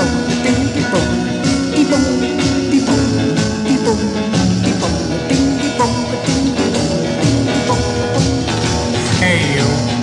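1950s–60s rock and roll record playing: a novelty rock and roll song with a steady drum beat.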